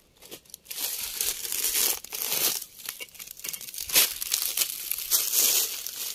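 Irregular rustling and crunching of someone clambering through dry material, with a sharper crack about four seconds in.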